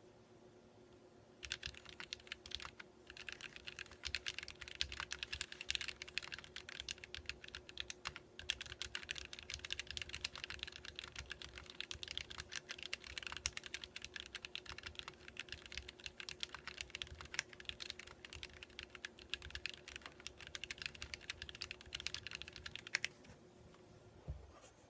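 Archon CX mechanical keyboard with Kailh Box Red linear switches being typed on in a fast, continuous stream of key clacks. The typing starts about a second and a half in, pauses briefly, and stops shortly before the end.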